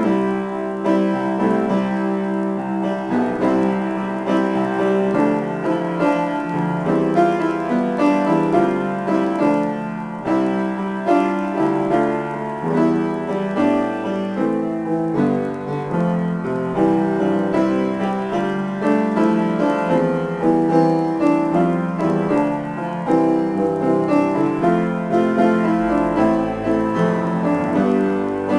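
Grand piano played solo in a free improvisation: a steady flow of chords and quick notes, mostly in the middle register.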